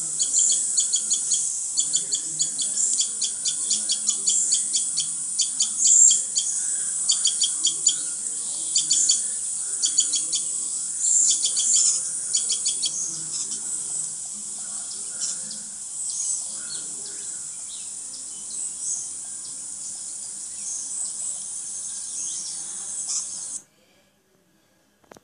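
Small birds chirping in quick, short, high calls, many at once at first and fewer later, over a steady high hiss. The sound cuts off suddenly near the end.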